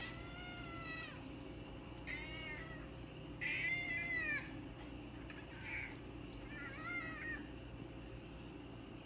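Domestic cat meowing repeatedly, about five drawn-out meows with the third the longest and loudest, about three and a half seconds in: demanding to be let outside.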